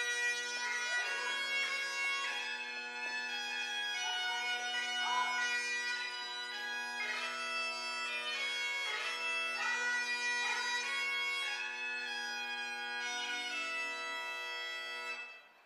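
Highland bagpipes playing a melody with quick grace notes over their steady drones, cutting off sharply near the end.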